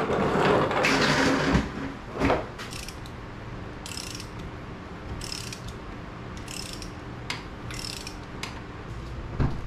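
A hand ratchet wrench clicking in several short strokes, roughly a second apart, while working on an engine. It comes after a louder burst of handling noise at the start.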